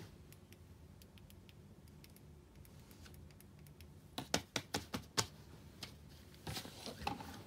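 Hands handling small toys on paper sheets: a quick run of about six sharp clicks or taps a little after four seconds in, then a brief scuffle of handling noise as a plastic rainbow puzzle ball and a squishy are swept up near the end.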